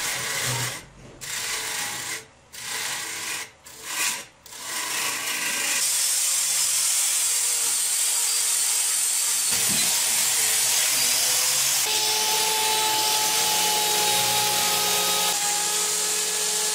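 Wood lathe with a hand-held tool working a spinning piece: short rasping scrapes with brief gaps for the first few seconds, then from about six seconds in a continuous steady hiss of the cut with a faint steady motor whine underneath.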